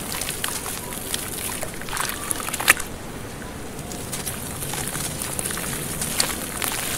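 A wet sand-and-charcoal block crumbling in the hands, its crumbs and grains pattering and splashing into shallow water. Many small crackles, with one louder snap about two and a half seconds in.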